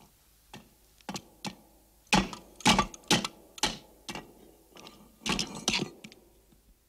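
Irregular sharp clicks and crackles from a Cybernaut robot's broken-off metal head with its wires hanging loose: a sound effect of the wrecked machine. The clicks are sparse at first, then come thicker and louder through the middle, about a dozen in all.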